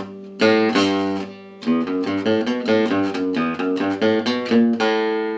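Acoustic gypsy jazz guitar playing an E minor lick with picked downstrokes. A first note rings for about a second, then after a short break comes a run of quick single notes, about five a second, ending on a held note near the end.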